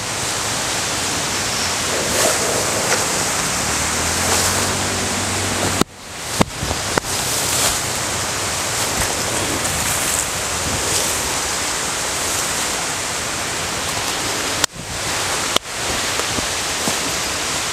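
Steady, loud rushing outdoor noise, with two brief dropouts about six and fifteen seconds in.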